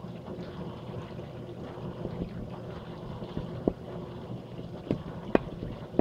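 Countertop dishwasher running its wash cycle: a steady pump hum under the rush of water from its top and bottom spray arms hitting the door and dishes. A few sharp knocks come near the end.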